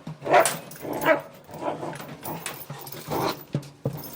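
Young working dog on a bite, vocalizing in a string of short whining cries, roughly one a second. It is a sign of conflict in anticipation of the out command. A sharp knock comes near the end.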